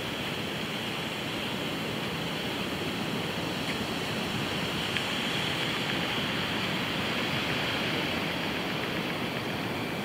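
Steady rush of big surf breaking on the beach, growing a little louder about halfway through.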